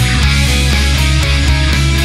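Loud rock background music with electric guitar over a steady, driving drum beat.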